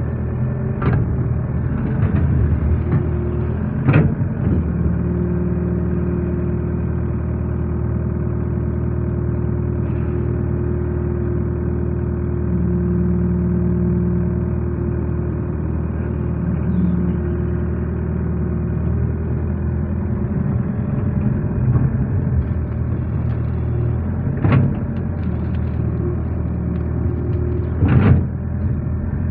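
Excavator diesel engine running steadily under hydraulic load as the bucket digs and dumps mud, heard from the operator's seat. There are a few sharp knocks along the way, two of them about 4 and 28 seconds in.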